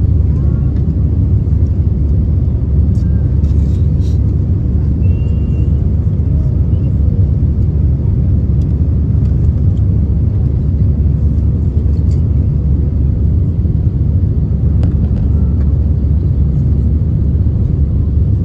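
Steady, loud low rumble inside the cabin of an Airbus A320-214: the CFM56 engines and the airflow over the fuselage heard from a window seat with the aircraft under power during the takeoff.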